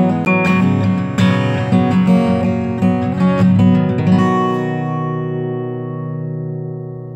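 Background music: acoustic guitar strummed, ending about four seconds in on a chord that rings on and slowly fades.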